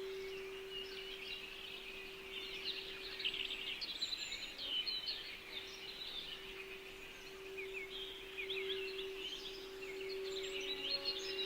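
Many small birds chirping and twittering in quick overlapping calls, over a steady held tone near 380 Hz (the 'throat center' meditation frequency) that runs without fading.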